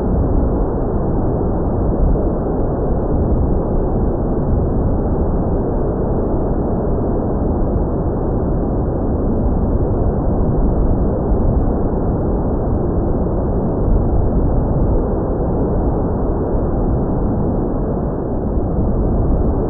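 Steady wind noise buffeting the microphone: a rough, even rumble with no clear tone.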